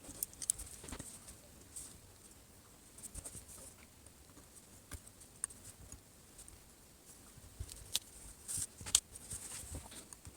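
Light, irregular clicks and small scrapes of fingers handling the Samsung Galaxy S4's frame while double-sided adhesive tape is fitted and pressed down around its edges; the sharpest click comes about nine seconds in.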